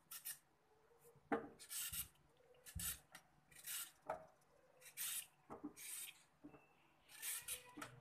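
Metal vegetable peeler scraping down a raw carrot, a series of short faint strokes about one a second.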